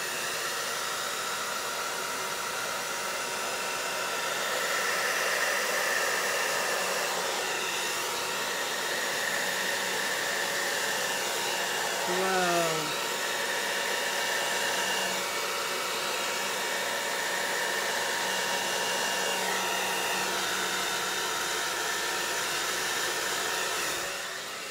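Hair dryer running steadily on its low, no-heat setting, blowing wet acrylic pour paint across a small canvas. It cuts off about a second before the end, and a brief falling tone sounds about halfway through.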